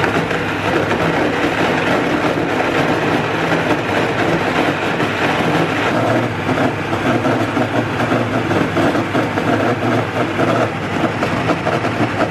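High-speed blender motor running steadily on its Auto-Blend setting, without vacuum, its blades churning a thick batch of young coconut meat, dates and water into a cream.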